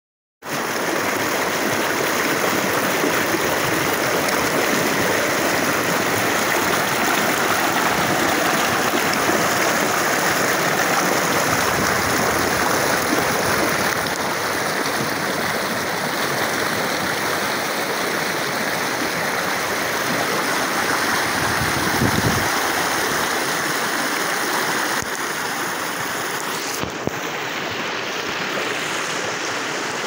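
Fast river water rushing through a rock chute and over granite slabs at a cascade: a steady, loud rush of white water that cuts in abruptly right at the start.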